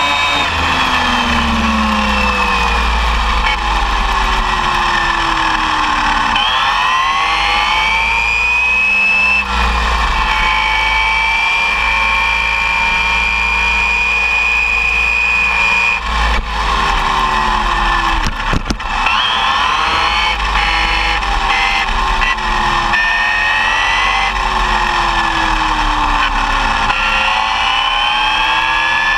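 Arrma Typhon 6S RC buggy's brushless motor and drivetrain whining at speed, the pitch rising and falling over a few seconds at a time as the throttle changes, over a steady low rumble.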